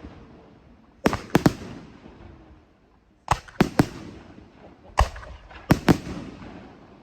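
Aerial firework shells bursting: sharp bangs in three groups of two or three, about two seconds apart, each group trailing off in a long echo.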